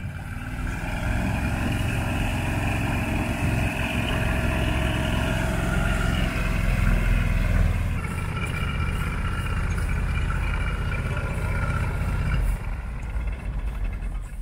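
Engine and propeller of a single-seat ultralight aircraft running steadily while it taxis on grass. The sound shifts slightly about halfway through and drops in level near the end.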